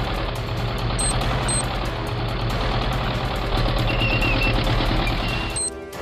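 Steady low engine sound of a toy tank driving, cutting off suddenly just before the end, with two short high beeps about a second in.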